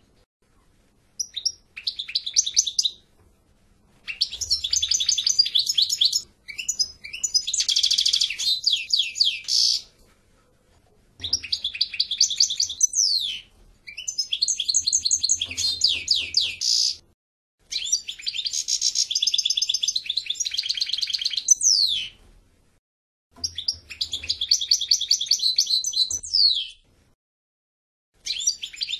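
European goldfinch singing: fast twittering song in phrases of two to four seconds, about seven of them, with short pauses between.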